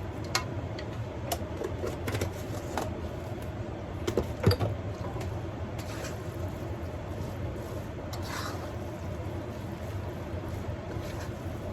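Kitchen utensil clicking and knocking against a bowl or pan several times, the loudest knock about four and a half seconds in, with a short scrape about eight seconds in, over a steady low hum.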